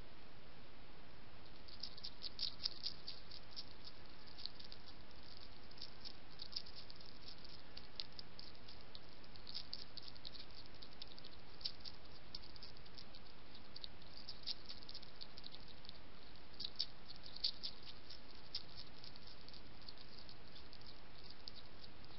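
European hedgehog chewing dry kitten biscuits: quick runs of sharp, crisp crunching clicks that come in irregular bursts every few seconds, over a steady hiss.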